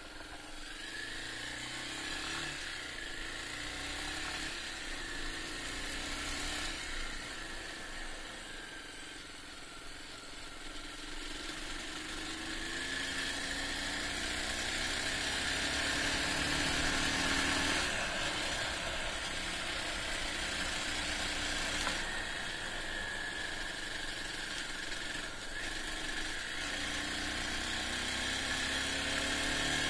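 Honda XR250 single-cylinder four-stroke motorcycle engine running on the move, its pitch rising and then dropping again several times as the bike accelerates and changes gear, over a steady rushing noise.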